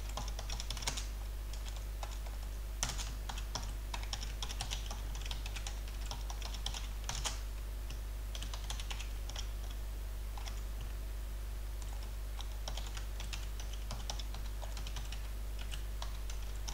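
Typing on a computer keyboard: key clicks in uneven bursts with short pauses between them, over a steady low hum.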